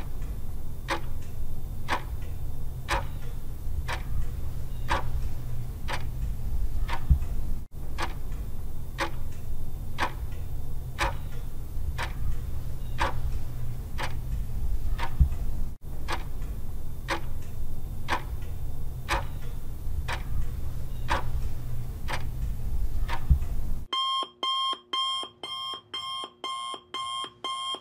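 Countdown-timer sound effect: a clock ticking steadily, about two ticks a second, over a low steady hum. About four seconds before the end it switches to rapid electronic alarm beeping, about three beeps a second, as the countdown runs out.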